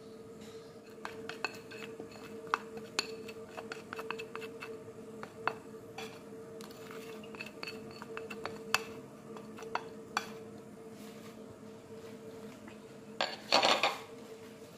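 Spoon and bowl clinking and scraping against the rim of an aluminium pot as thick dulce de leche is scraped out: scattered light clinks, with a louder run of scraping near the end. A faint steady hum runs underneath.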